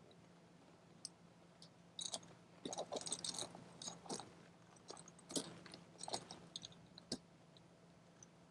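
Faint scattered clicks, taps and crinkling from hands handling and fitting the plastic parts of an inflatable kayak.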